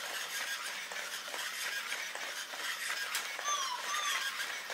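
Sony AIBO ERS-210 robot dog walking on carpet, its leg servos whirring and clicking with each step. Two short falling chirp tones sound about three and a half and four seconds in.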